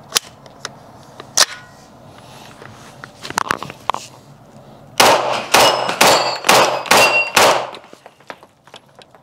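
CZ Scorpion Evo 3 S1 pistol (9 mm) fired six times in quick succession, about two shots a second, with a metallic ring from the steel plates as they are hit and a heavy echo of the indoor range. A few light clicks of gun handling come first.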